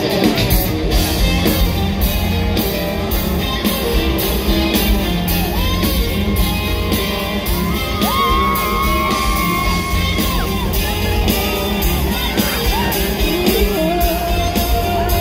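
Live band playing loud and amplified, an electric guitar over a steady drum beat and heavy bass, with voices singing and shouting over it.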